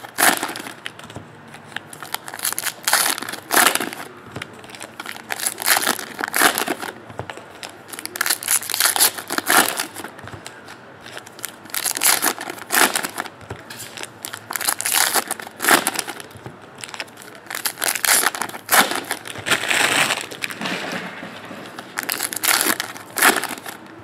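Trading cards and their packaging being handled: irregular swishing and crinkling noises about once a second as packs are opened and cards are flipped through.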